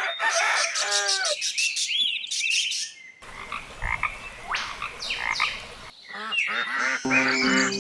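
A run of short animal calls, cut together abruptly, with pitch-bending calls over rapid clicking at first and then gliding calls. Music starts near the end.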